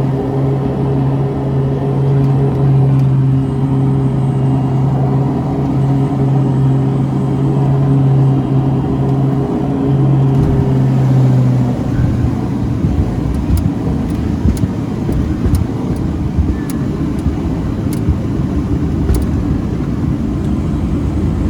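Beechcraft King Air turboprop running: a steady low propeller drone with overtones. About twelve seconds in, the drone drops away and leaves a rough rumble with scattered sharp clicks.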